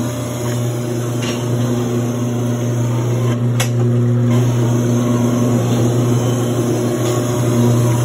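Blade grinder running, its coolant-flooded grinding wheel passing along a wood chipper knife to sharpen it: a loud, steady machine hum over a grinding hiss.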